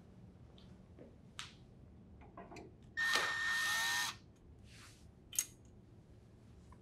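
Cordless drill driver with a Phillips bit spinning for about a second to back a screw out of a refrigerator's metal freezer slide rail, its motor pitch rising as it runs. A few light handling clicks come before it, and one sharp click follows about a second after it stops.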